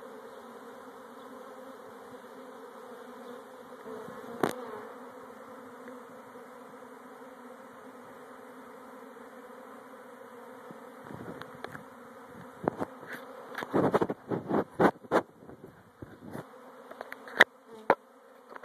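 A honeybee swarm buzzing in a steady hum. A single sharp click comes about four seconds in, and a run of loud, irregular knocks and crackles follows in the second half.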